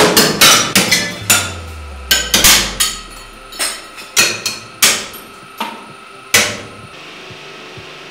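A black cooking pan cracking and breaking apart under a 100-ton hydraulic press. A rapid run of sharp, loud cracks comes in the first three seconds, then a few more spaced out, the last about six seconds in.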